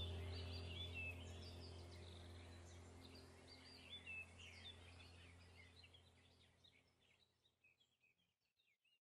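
Faint birds chirping over a low steady hum, the whole sound fading out and dying away near the end.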